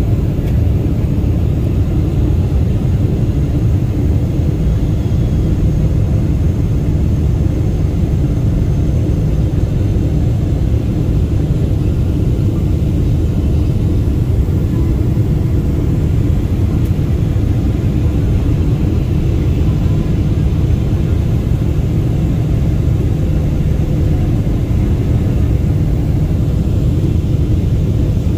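Jet airliner cabin noise in flight, heard inside the cabin at a window seat beside the engine: a loud, steady low rumble of engine and airflow.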